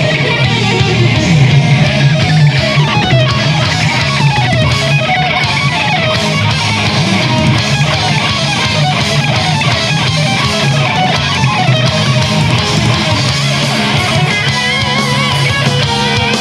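Two electric lead guitars playing fast shred runs in a heavy metal instrumental, over a steady low backing.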